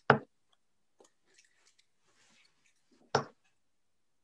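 Darts striking a bristle dartboard: two sharp thuds about three seconds apart, with faint small clicks between.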